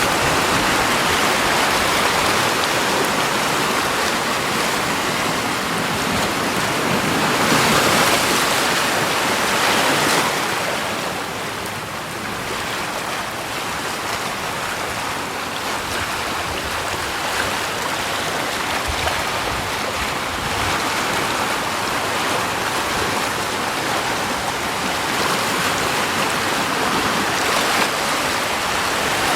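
Steady rushing water, swelling louder for a few seconds about eight seconds in, then settling back to a softer, even rush.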